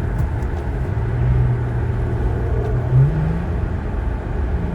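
Infiniti Q50's engine and exhaust, fitted with AMS lower downpipes, droning steadily while the car drives, the note stepping up in pitch with a brief rise in loudness about three seconds in.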